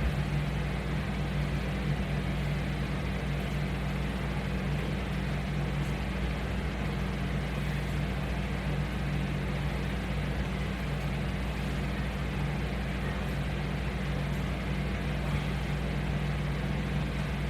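A steady low mechanical hum that holds an even pitch and level throughout.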